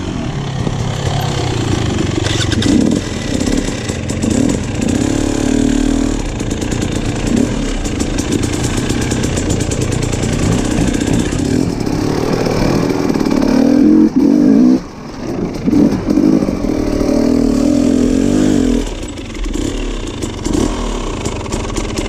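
Off-road motorcycle engine revving up and down as the rider works the throttle, with a short drop in the engine note about fifteen seconds in.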